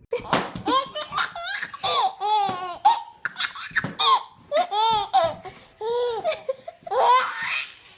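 A baby laughing hard in repeated high-pitched belly laughs and squeals, starting suddenly.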